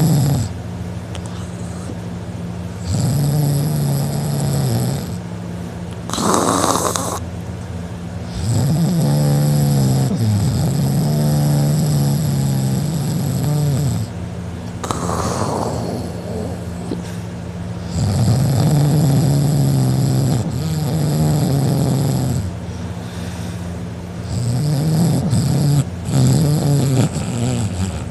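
A man passed out drunk, snoring loudly through an open mouth: long, rattling snores every few seconds, with a short hissing breath out between some of them.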